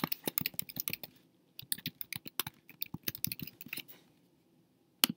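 Typing on a computer keyboard in quick runs of keystrokes, with a short pause just after a second in, then one louder single click near the end.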